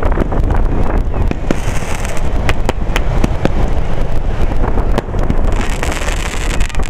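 Fireworks display: aerial shells bursting in a rapid, irregular series of sharp bangs over a constant low rumble. Two spells of high hiss come in, about a second and a half in and again near the end.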